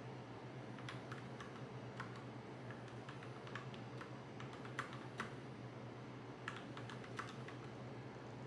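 Typing on a mechanical keyboard: irregular clusters of key clicks, a few a second with short pauses, over a steady low hum.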